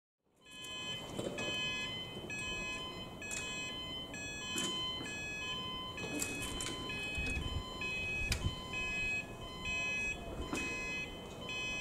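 Level crossing warning alarm sounding a repeating two-tone warble while the crossing lights flash, with a few short knocks.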